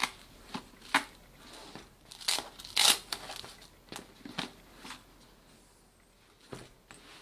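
Hook-and-loop side-pocket flap of a canvas camera bag being handled open and shut: a string of short rasping rips and fabric rustles, the loudest about three seconds in, thinning out toward the end.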